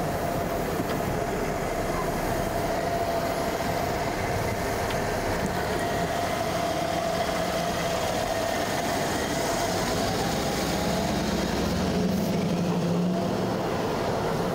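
A car running steadily: a low engine hum over an even noise bed, with a thin steady tone above it and the hum swelling briefly near the end.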